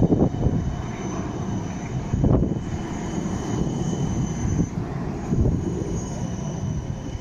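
City tram running on its rails: a steady low rumble with a few heavier thumps.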